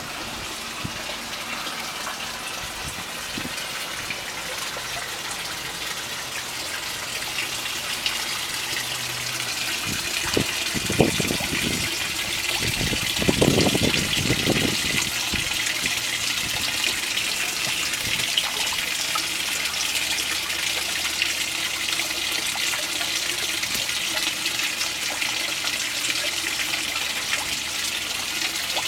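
Garden pond waterfall splashing steadily into a koi pond, with two brief louder swells near the middle.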